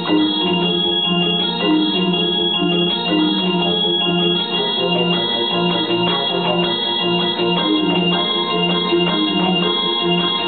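Yamaha DGX-200 portable keyboard played live with an organ-like voice: a continuous melody over a regularly pulsing bass line.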